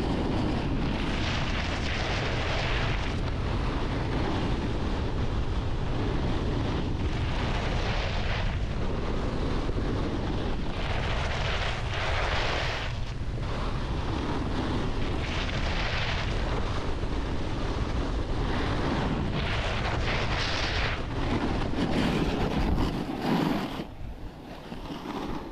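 Wind buffeting the microphone of a snowboarder riding downhill, with the board's edge scraping and hissing across the snow in swells every second or two as it carves turns. The wind rumble drops off near the end as the ride slows.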